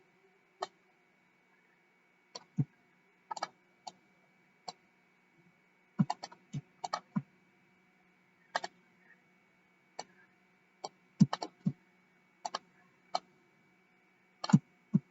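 Computer keyboard keystrokes and mouse clicks, scattered and irregular: single clicks and quick clusters of two to four, with gaps of a second or so between them.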